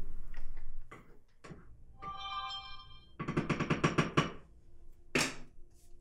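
Laundromat background noise cuts off about a second in. Then comes a mobile phone alert: a short chiming tone, followed by about a second of rapid, even rattling pulses, like a phone buzzing against a hard surface. A single short clatter follows near the end.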